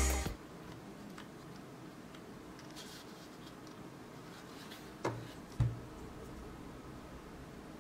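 Hands handling small perfboard circuit boards: faint rubbing, then two light knocks about half a second apart about five seconds in, as the little receiver board is picked up.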